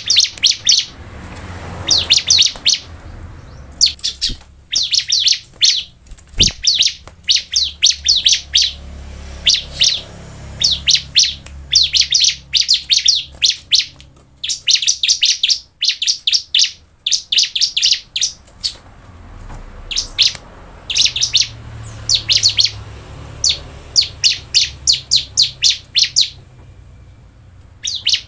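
Bar-winged prinia (ciblek) singing: bursts of rapid, high, sharp chirps, each burst well under a second, repeated over and over with short gaps. A single knock sounds about six and a half seconds in.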